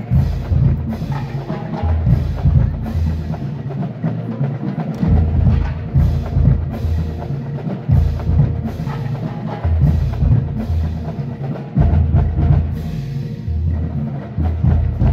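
Marching band playing: drums beating, with long low brass notes held underneath.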